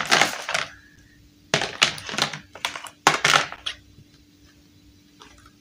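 Hard plastic dollhouse panels and roof pieces clattering and scraping against each other as they are picked up and moved, in three short bursts over the first few seconds, then a few faint clicks.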